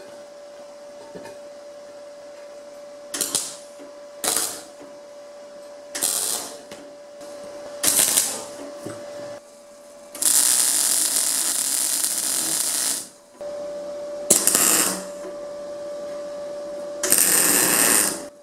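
R-Tech MIG welder arc crackling as galvanized steel pipe sections are welded: several short tack welds, then a continuous bead of about three seconds, then two more short welds near the end. A steady hum sounds between the welds.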